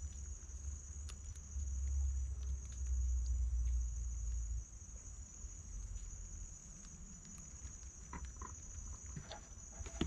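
A steady high-pitched insect drone from the swamp vegetation, over a low rumble that swells for a few seconds near the start. Faint clicks of handling come as a giant freshwater prawn is taken off the hook.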